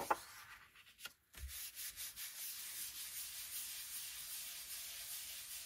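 Hands rubbing the back of an old book page pressed onto a Gelli plate, burnishing it to pull a print: brief paper handling, then from about a second and a half in a steady dry rubbing of palms on paper.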